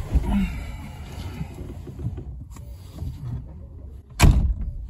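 Someone getting into the driver's seat of a 1989 VW Citi Golf: a low thump as he drops into the seat, then rustling and shifting, followed about four seconds in by a loud slam as the driver's door is pulled shut.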